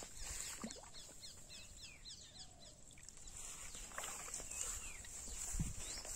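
Small birds chirping: a quick run of short, falling high notes, strongest in the first half, over a steady high-pitched hiss.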